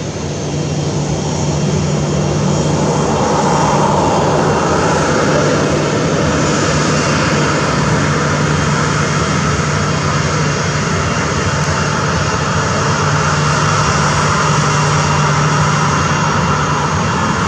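Boeing 737-800's twin CFM56-7B turbofan engines running at taxi power as the airliner taxis past, growing louder over the first couple of seconds and then steady, with a steady low hum underneath.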